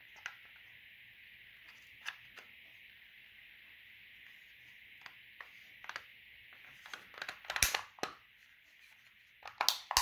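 Plastic clicks and snaps from a Ford Ranger blend door actuator's housing as its cover is pressed and snapped back on, with a few scattered clicks and then a quick cluster of louder snaps about seven seconds in and again near the end. A faint steady hiss runs underneath.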